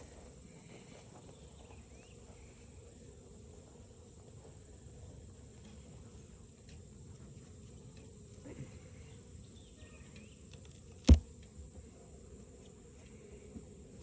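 Faint steady insect chirring, crickets in the meadow, with one sharp knock about eleven seconds in.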